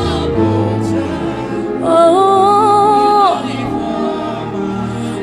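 Gospel worship music with singing over instrumental accompaniment, including a long held sung note about two seconds in.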